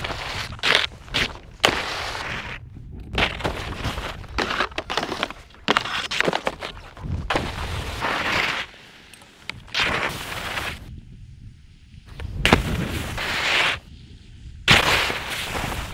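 Skis carving and scraping across packed snow: a run of loud hissing turns, each half a second to a couple of seconds long and most starting sharply, with a low rumble underneath.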